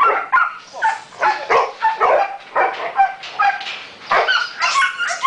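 Belgian Malinois and young Dutch Shepherd dogs barking excitedly in a rapid series, about two barks a second, as they wait for the ball in a game of fetch.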